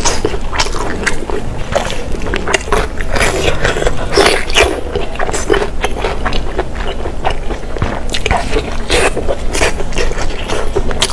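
Close-miked eating sounds: chewing and biting, a dense, irregular run of mouth clicks and smacks.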